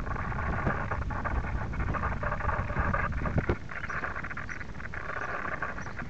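A steady low rumble of wind and handling on the microphone. Over it come faint, continuous chirping and chatter of small aviary birds, with a few small clicks.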